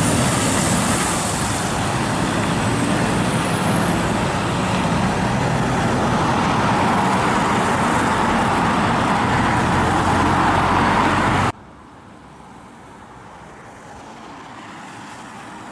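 Heavy lorry's diesel engine and tyres, loud and steady, as the truck drives off down the road. About eleven and a half seconds in, the sound cuts off abruptly to much quieter road noise as a DAF lorry approaches, growing a little louder.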